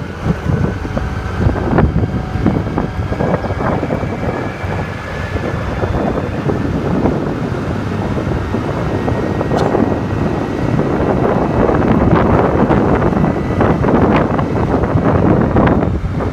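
Strong wind buffeting the microphone of a camera moving along the road, a loud, uneven rush that grows louder after about ten seconds.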